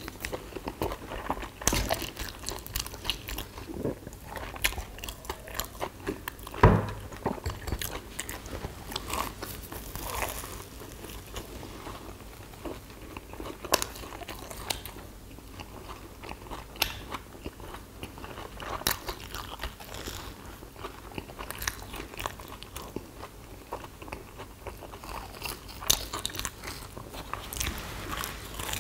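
Close-up eating sounds of people biting into and chewing kkwabaegi, Korean sugar-coated twisted fried doughnuts: many small irregular bites and mouth noises, with one louder thump about seven seconds in.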